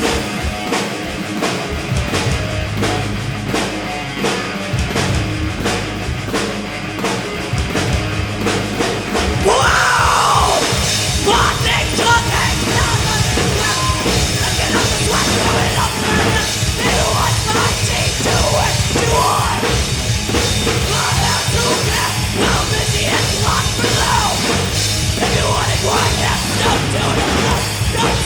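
Live rock band playing an instrumental passage with drums. It kicks into a louder, fuller section about ten seconds in.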